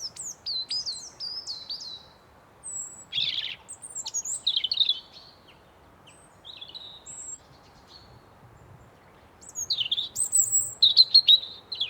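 Wild birds chirping and trilling in quick bursts of short high notes, with a lull in the middle and a busier, louder stretch near the end, over a faint steady background hiss.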